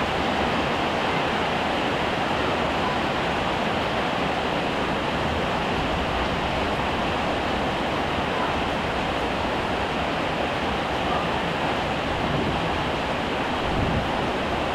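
Heavy rain falling steadily, a dense, even wash of noise.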